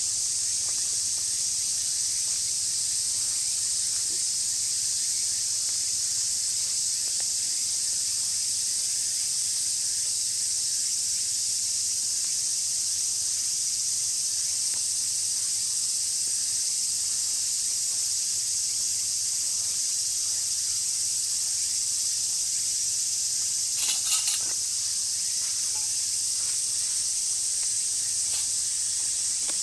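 Steady, shrill insect chorus filling the air without a break, with a short burst of clicks near the end.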